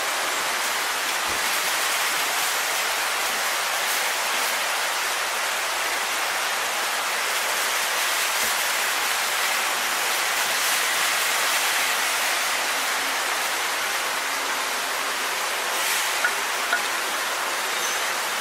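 Steady rushing-water noise, an even hiss with little low end and no change in level, with two light clicks near the end.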